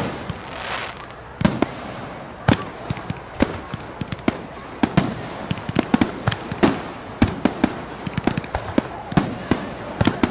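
Fireworks show: a steady run of sharp bangs and crackling reports at irregular intervals, several a second, with a short hiss near the start.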